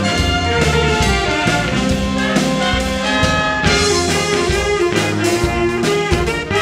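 Youth jazz big band playing live: trumpets and trombones sounding full chords over a bass line that moves about every half second, with saxophones in the mix.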